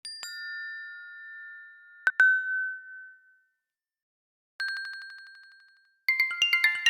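Built-in iPadOS system sound effects played one after another: a two-tone electronic chime with a second ding about two seconds in, then a single ding fading away near the middle. Near the end a quick run of short bell-like notes begins.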